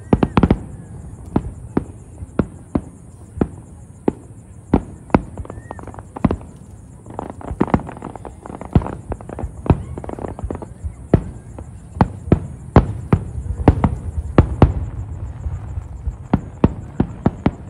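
A fireworks display: a rapid, irregular run of sharp bangs and crackles from shells bursting, over a low rumble. The bangs come thickest and loudest in the middle stretch.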